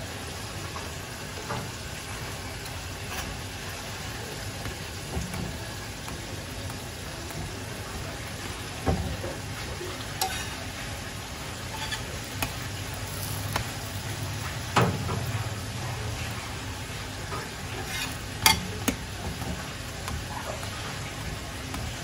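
Pita bread heating on a hot black iron tawa, a steady low sizzle and hiss, broken by a handful of sharp taps and scrapes of a metal spatula against the pan.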